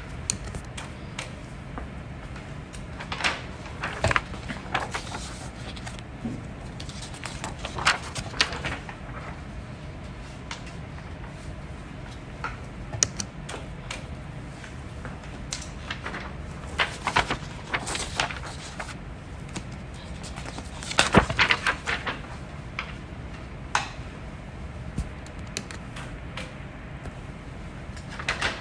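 A person hiccuping slowly: short, sudden hiccups at irregular intervals a few seconds apart, a couple of them coming in quick pairs, over a steady low hum.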